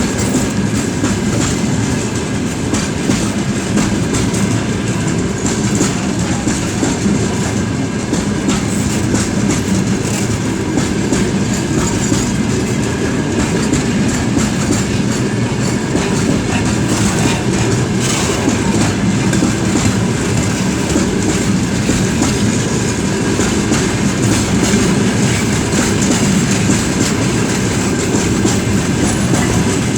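Freight train rolling past at steady speed, its wheels clattering over the rail joints in a continuous clickety-clack, with a faint steady squeal from the wheels.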